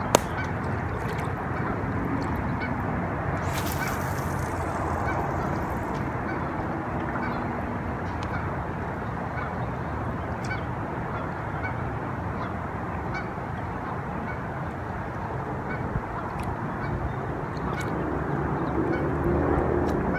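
Geese honking over steady background noise, with a sharp click right at the start and a brief hiss about four seconds in.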